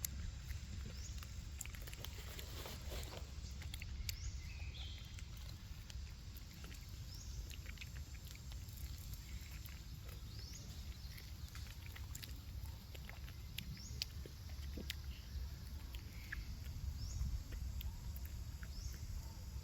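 An animal's short, high, rising chirps, one every couple of seconds, over a low rumble with scattered small clicks.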